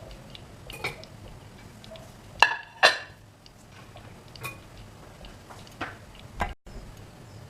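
Kitchen utensils clinking and knocking against cookware: scattered light taps, with two louder ringing clinks about half a second apart near the middle.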